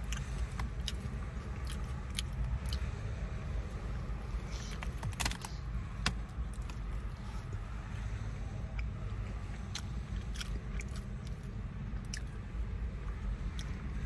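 Close-up eating sounds of a burrito being handled and chewed: wet mouth clicks and short crackles from fingers working the tortilla and its paper wrapping, a cluster of them about five seconds in. A steady low car-interior rumble lies under it all.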